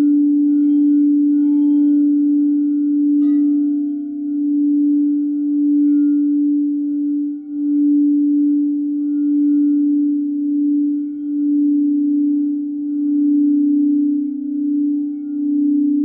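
Frosted quartz crystal singing bowls played with mallets: one low bowl rings in a steady, gently wavering hum, with fainter higher tones above it. A light strike about three seconds in sets a higher bowl ringing on top.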